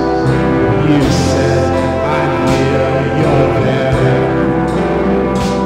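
Live rock band playing, with organ, electric guitar, bass guitar and drum kit: held chords over a steady bass line, with cymbal crashes a few times.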